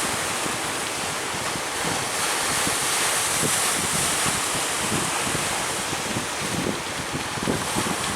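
Strong wind buffeting the microphone in irregular gusts over a steady rush of sea surf.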